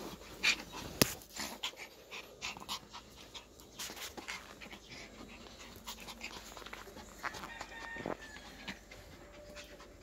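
Small dogs play-fighting, panting, with many short scuffles and clicks throughout.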